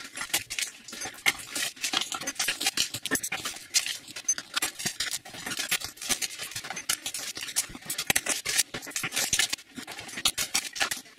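Trading-card mini boxes being opened by hand: dense crinkling of the plastic wrap around the card stacks and rustling of the cardboard box flaps, with many small clicks.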